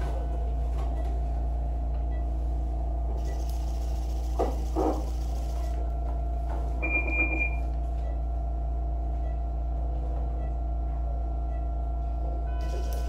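Steady low hum of operating-room equipment with a constant mid-pitched tone, broken by one short high electronic beep about seven seconds in.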